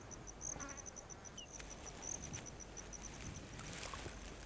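Insects chirping in a steady, rapid, high-pitched pulse train, with a few faint clicks.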